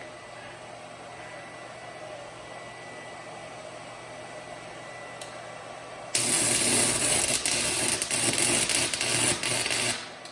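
Stick welding arc: after a low steady background, the arc strikes about six seconds in and crackles loudly for about four seconds, then stops abruptly.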